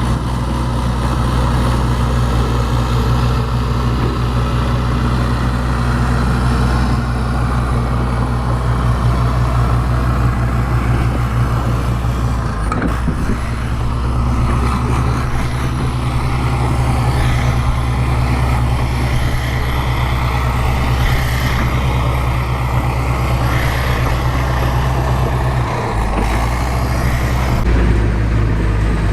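A bulldozer's diesel engine runs steadily with a deep drone and a thin high whine above it. The engine note dips briefly about 13 seconds in and shifts again near the end.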